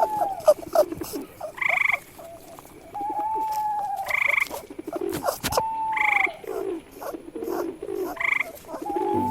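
Frogs croaking: a buzzy, pulsed call comes four times, roughly every two seconds, among shorter arching calls and scattered clicks.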